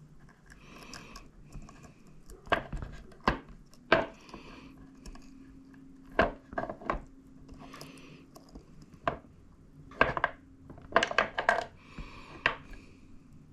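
Small metal ratchet parts and hand tools clinking and knocking as they are handled and set down on a work surface: about a dozen irregular sharp clacks, some in quick clusters near the end, with soft rustling between them. A faint steady hum comes in about a third of the way through.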